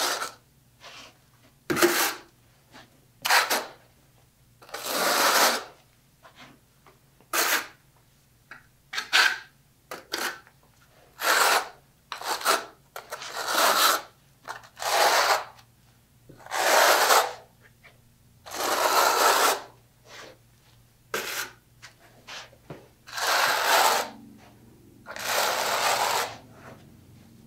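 A 3/8-inch square-notch trowel combing thinset mortar into ridges: repeated scraping strokes, some short and some over a second long, with brief pauses between them.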